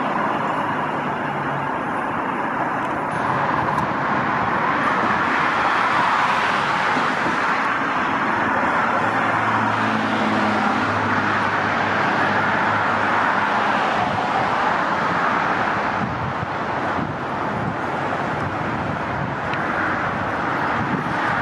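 CTA Budd 2600-series rapid-transit train pulling into the platform and slowing to a stop, with a low hum from the train in the middle of its approach. Steady road-traffic noise runs underneath.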